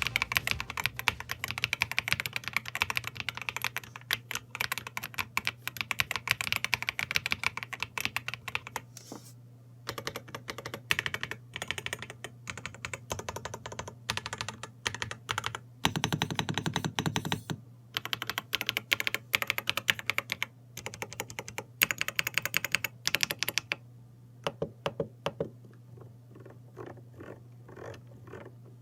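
Typing on a Redragon Ucal Pro K673 gasket-mount mechanical keyboard with pre-lubed Redragon hi-fi switches: a fast clickety-clack of keystrokes in quick runs broken by short pauses, thinning to separate key presses near the end.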